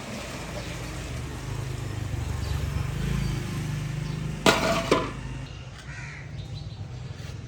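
A crow cawing twice in quick succession, harsh and loud, about four and a half seconds in, over a steady low hum.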